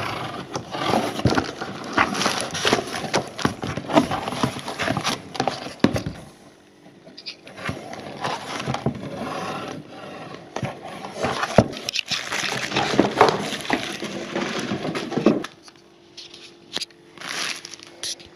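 Plastic wrapping crinkling and cardboard and paper rustling as packaging is handled and opened, in two busy stretches that ease off about six seconds in and again about fifteen seconds in.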